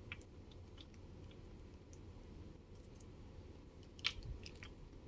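Faint handling sounds of hands taking out and working a small piece of cold porcelain modelling paste: a few small clicks and taps, the loudest about four seconds in, over a low steady hum.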